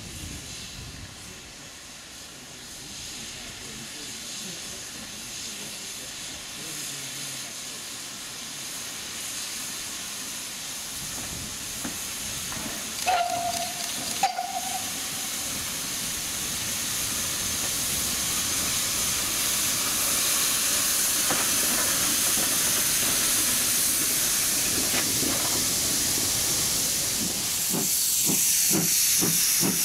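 GWR 15xx class pannier tank steam locomotive No. 1501 running light, with a brief whistle toot about halfway through. After that comes a steady hiss of escaping steam that grows louder as the engine comes close, with a quick run of exhaust beats near the end.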